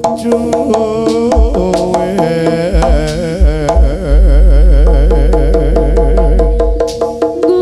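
Jaranan gamelan music played through a loud sound system: rapid hand-drum strokes and a wavering melody line over steady pitched tones. A deep bass note sounds for about three seconds in the second half.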